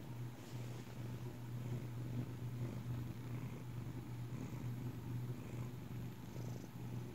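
Tabby cat purring steadily, close up.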